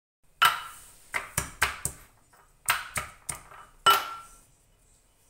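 Wooden pestle pounding garlic cloves in a ceramic bowl: about nine sharp knocks in uneven groups, the last and loudest with a short ringing tail from the bowl.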